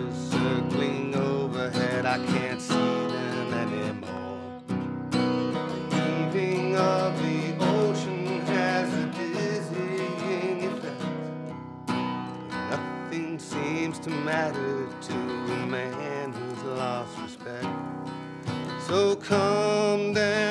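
Acoustic guitar strummed while a man sings along, a song accompanied by a single guitar.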